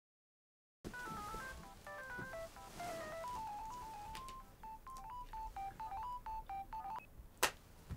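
A quick, melodic run of short electronic beep tones hopping between pitches, some sounding two at once, followed by a single sharp click near the end.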